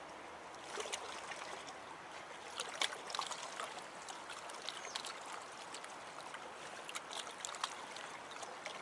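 Lake water lapping and trickling against the rocky shore and a wooden post, with scattered small splashes and clicks.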